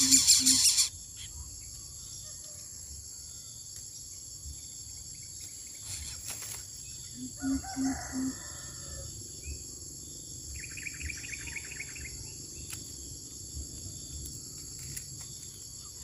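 Greater coucal calling with a run of four deep, evenly spaced hoots about seven seconds in, over a steady high drone of insects. Coucal chicks' begging squeals, gaping in the nest, cut off about a second in.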